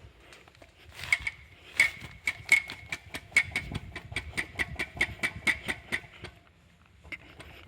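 Sharp metallic clicks at about five a second, each leaving a ringing tone, from hand work on a dismantled CVT transmission. They start about a second in and stop about six seconds in.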